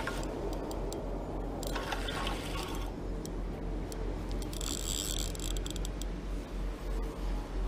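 Spinning reel being wound in while playing a small carp on a bent rod: the reel's gears whirring with light clicking, and a brief high, rapid rattle about five seconds in.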